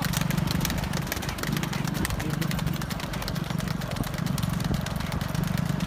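A small vehicle's engine running steadily, swelling and easing every second or two, with the quick clip-clop of a pair of trotting bulls' hooves on asphalt.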